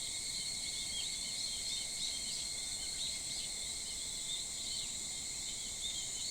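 Summer early-morning insect chorus, a steady high-pitched drone in several layers, with many short, quick bird chirps over it.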